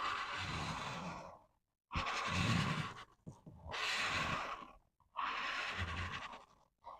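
Felt-tip marker scratching across paper in four long coloring strokes, each about a second and a half long with short pauses between.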